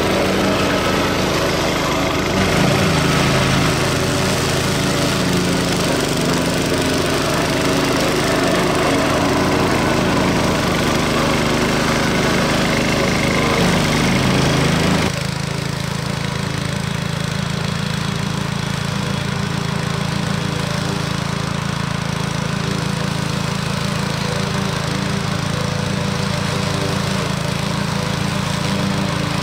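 Briggs & Stratton 344 cc single-cylinder petrol engine of a walk-behind high-grass mower running under load, its mulching blades cutting through long grass. About halfway through the sound changes abruptly to a slightly quieter, steadier engine note with less cutting noise.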